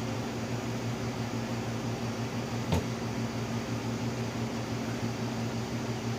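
Blow dryer running steadily: a constant motor hum under a rush of air. A single short click sounds about halfway through.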